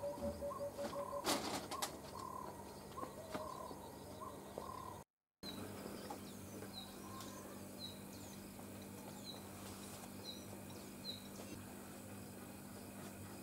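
Wild birds calling in the open: a run of short, repeated mid-pitched call notes with a brief flurry of sharp clicks, like wingbeats, about a second in. After a cut, a small bird gives short, high, falling chirps over and over, over a steady low hum.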